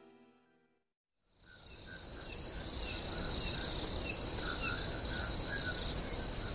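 Evening ambience effect fading in after about a second of silence: crickets trilling steadily and high, with faint short chirps and a low background hiss beneath.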